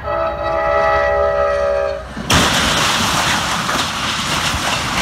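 Passenger train horn sounding a steady multi-note chord for about two seconds. It cuts off, and a moment later comes a sudden loud crash as the train strikes a vehicle on the crossing. A dense rushing noise follows.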